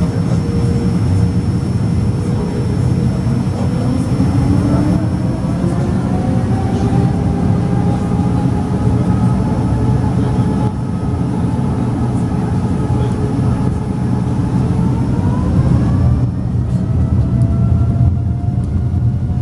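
Boeing 787-9's Rolls-Royce Trent 1000 turbofans heard from inside the cabin during taxi: a steady low rumble under an engine whine that rises in pitch a few seconds in and again about three-quarters of the way through, as thrust is added.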